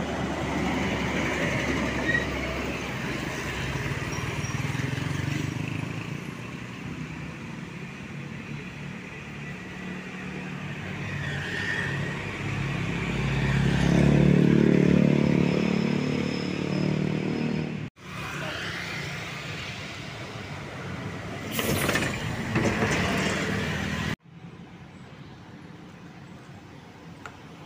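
Road traffic passing: engines and tyres of cars and motorbikes going by, with one engine passing close and loud about halfway through. A short hissing burst follows a few seconds later, and the sound breaks off sharply twice.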